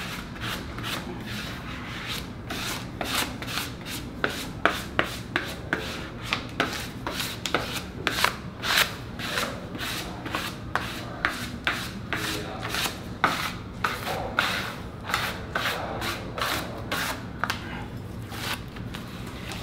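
A vinyl floor stencil being rubbed down onto bare concrete: quick, rasping hand strokes, two or three a second, pressing the vinyl flat so it sticks.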